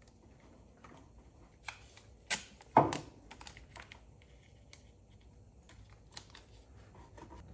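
Light handling noises: scattered soft clicks and taps, with two sharper knocks between two and three seconds in.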